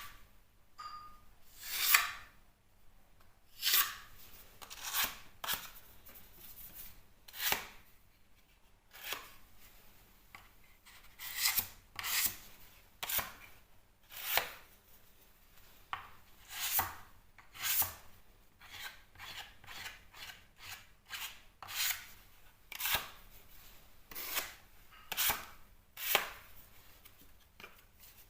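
Filling knife scraping and spreading filler over plasterboard: a run of short scraping strokes, one every second or so.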